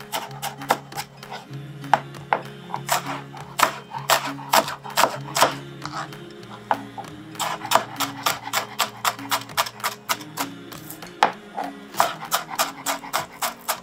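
Chef's knife dicing an onion on a cutting board: quick, uneven strikes, a few each second, blade knocking through onion onto the board. Background music with low held notes plays underneath.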